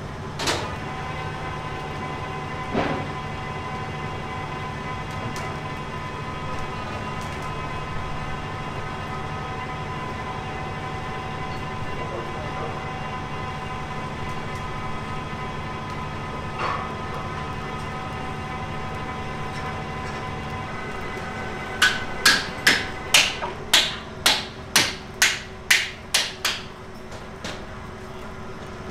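A machine's engine running steadily with a held hum, cutting out about two-thirds of the way through. It is followed by a quick run of about a dozen ringing hammer blows, roughly two or three a second, typical of pins being driven home while a fairground ride is built up.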